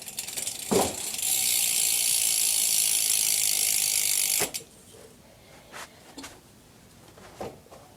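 Rear hub freewheel of a BMX bike buzzing with rapid ratchet-pawl clicking as the back wheel spins on its 10-tooth driver. It starts after a thump just under a second in, runs loudly for about three and a half seconds, then cuts off suddenly, leaving a few faint clicks.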